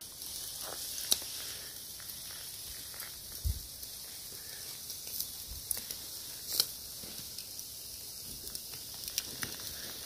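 Food sizzling in a wire grill basket over hot charcoal in a mangal: a steady high hiss with scattered sharp crackles and pops, the loudest about a second in and past the middle.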